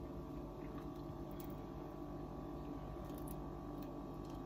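Quiet steady low hum with a few faint small crackles as fingertips pick at a cracked hard-boiled quail eggshell to start peeling it.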